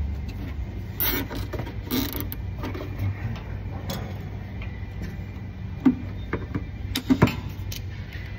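Plastic zip tie being cinched around a vehicle wiring harness: short rasping zips about one and two seconds in, then scattered sharp clicks and taps from handling the plastic sensor module and wiring.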